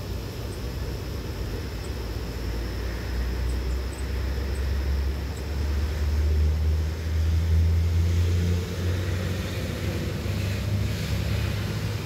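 Low engine rumble of a passing motor vehicle, growing to its loudest around the middle and then easing off.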